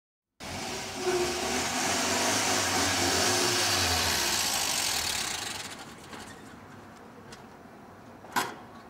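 Car on the street with engine and tyre noise, loud for about five seconds and then fading away. A single sharp click comes near the end.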